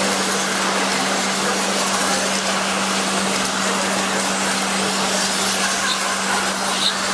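Electric RC touring cars racing on an asphalt track: a steady whirring hiss of motors and tyres, over a steady low hum.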